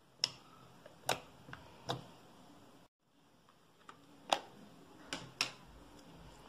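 Slime being pressed and squeezed by hand, trapped air popping out in a string of sharp clicks. Then a snap as the plastic lid is pried off a small tub of slime packed with water beads.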